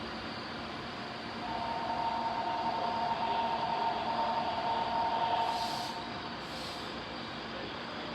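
Keikyu electric commuter train running at the station with a steady rumble. A steady two-note whine rises about one and a half seconds in and fades around six seconds. Two short hisses of air follow near the end.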